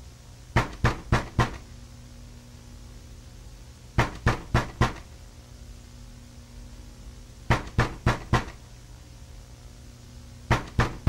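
Knocking on a door in sets of four quick, evenly paced knocks, each set about three and a half seconds after the last, over a low steady hum.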